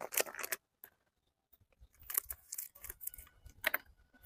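Plastic packet of henna powder rustling and crinkling as it is handled. There is a short rustle at the start, then scattered rustles and light clicks from about two seconds in.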